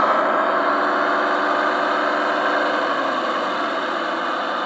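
G-scale garden-railway model of a DB class 260 (V60) diesel locomotive running along the track with its freight wagons, a steady engine-like running sound that slowly grows fainter as it moves away.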